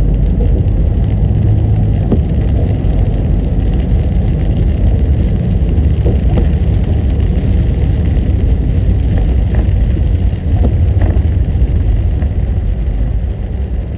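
Car being driven: a steady, loud low road-and-engine rumble, with a few faint scattered ticks.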